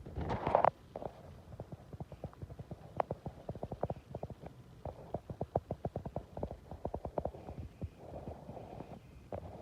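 Rain striking the microphone: rapid, irregular taps and thumps, several a second, with a short gusty wash of wind and waves a little after eight seconds in.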